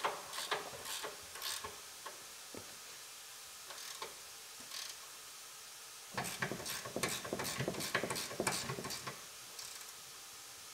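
Hand ratchet clicking as the upper mounting nuts of a new front shock absorber are tightened: a few spaced clicks at first, then a quicker run of clicks about six seconds in that lasts around three seconds.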